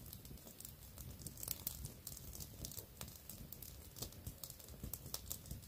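Small fire of dry twigs and brush crackling faintly, with irregular sharp snaps and pops, several a second.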